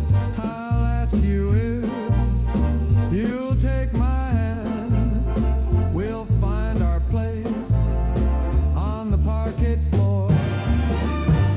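Swing-style dance band music in an instrumental passage: a bass line stepping from note to note under a lead melody that bends up and down in pitch.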